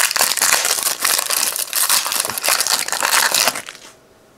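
Foil wrapper of a Panini Prizm trading-card pack crinkling and tearing as the pack is ripped open by hand, stopping about three and a half seconds in.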